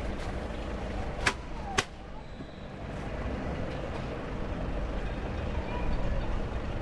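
Outdoor street ambience with a steady traffic hum. Two sharp clicks come about half a second apart a little over a second in, and the hum grows louder toward the end.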